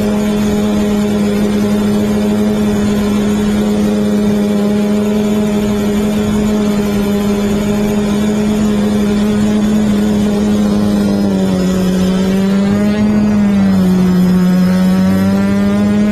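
Quadcopter's electric motors and propellers humming steadily, heard close up from the camera on the craft. In the last few seconds the pitch dips and recovers twice as the motor speeds change.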